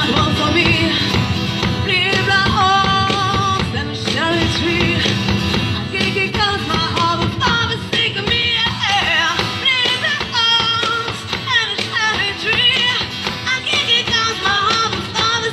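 Live acoustic music from a duo, played without a break: guitar accompaniment with a wavering melody line over it.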